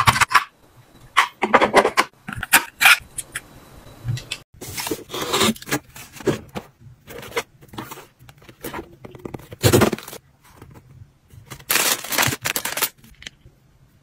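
Close-up handling sounds in irregular short bursts: small items clacking and scraping into a clear plastic organizer bin, then a cardboard blind box and its packaging handled and rustled as a vinyl figure is unboxed.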